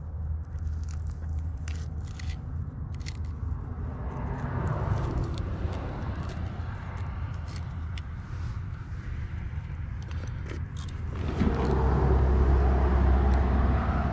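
Knife cutting sardine bait on a stone: short clicks and scrapes of the blade against the rock, over a steady low rumble that grows louder about eleven seconds in.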